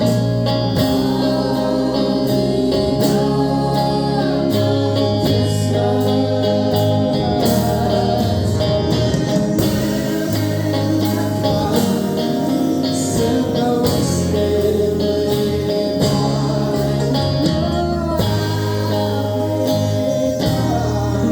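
A live band playing a song, with a singer's voice over sustained chords and a bass line.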